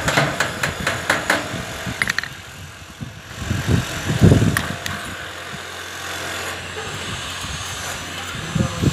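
Hammer tapping a nail against a galvanized steel duct panel, quick light metallic taps about four a second for the first two seconds, marking the spot for a drill hole. A few dull low thuds follow about four seconds in.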